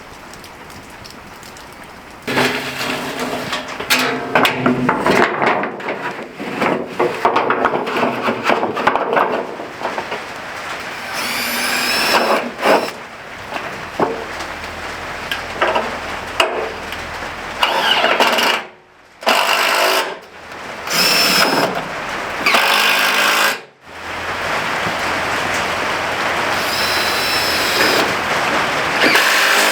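Steady rain at first. About two seconds in, a run of short, abruptly cut clips of tool work on the wooden-stake frames and scrap tin begins: a power tool running in bursts, with knocks and scraping.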